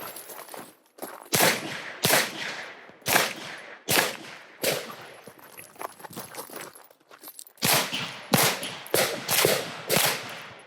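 Pistol shots fired on a timed IDPA course: about five shots in quick succession, a pause of about three seconds, then about five more, each with a short ringing echo.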